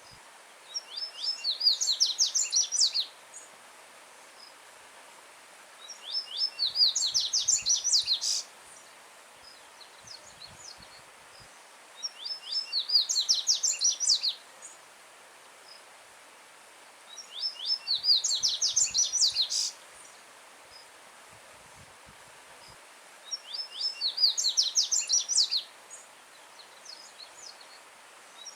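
A coleiro baiano seedeater singing loud phrases of rapid, high, clipped notes, five times, each phrase about two and a half seconds long with pauses of three to four seconds between. A faint, steady stream runs underneath.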